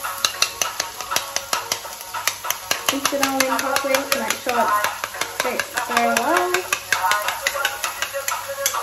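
Eggs being beaten with a metal fork in a white ceramic bowl: a rapid, rhythmic clicking of the fork against the bowl, several strokes a second.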